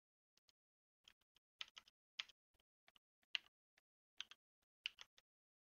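Irregular clicking of a computer keyboard and mouse in use, some clicks in quick pairs, against near silence.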